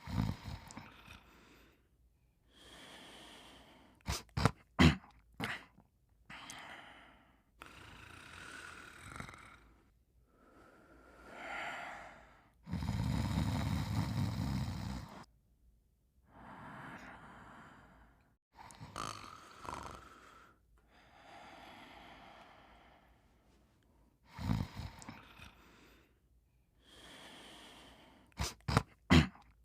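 Cartoon-style snoring: slow breathy inhales and exhales in turn, with a few quick sharp clicks near the start and again near the end, and one long loud low snore about halfway through.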